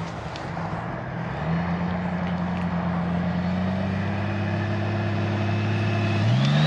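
Motorcycle engine running slowly at a steady low pitch. Near the end the engine note briefly rises and falls and grows louder.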